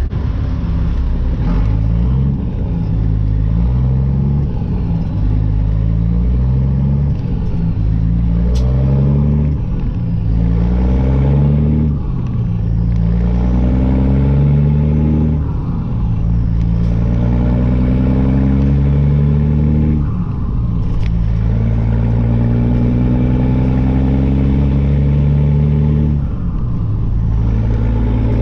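Caterpillar C-15 diesel of a Kenworth T800 semi, straight-piped, pulling through the gears of a 10-speed manual transmission, heard from inside the cab. The engine note climbs in pitch and drops back at each upshift, about five times.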